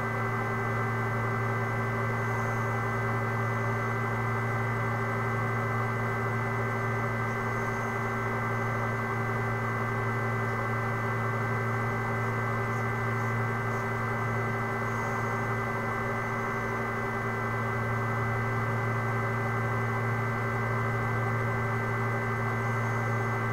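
Steady electrical hum of several constant tones, the lowest the strongest, over a faint hiss, with no change in level.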